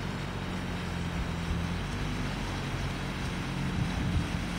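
Outboard motor in a drift boat's engine well running steadily while the boat is under way: an even engine hum over a steady wash of wind and water noise.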